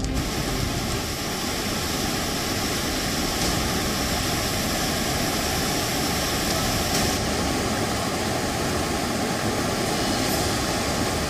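Floodwater of a swollen river rushing steadily past bridge piers, a loud, even, unbroken rush of water.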